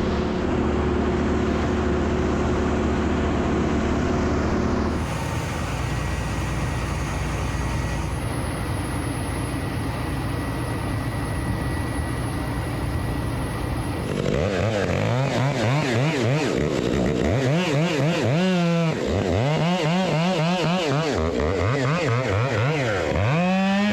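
Engine-driven machinery in several abruptly cut segments: a steady hum for about five seconds, then a noisier stretch, then about ten seconds of an engine revved up and down over and over.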